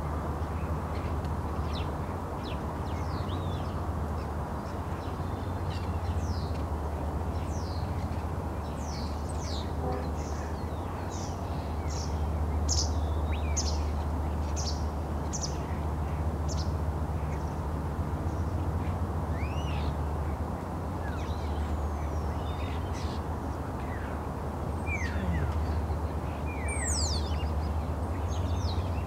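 Birds calling at the shoreline: short, high chirps and whistles, with a run of repeated notes about two a second in the middle, over a steady low background rumble.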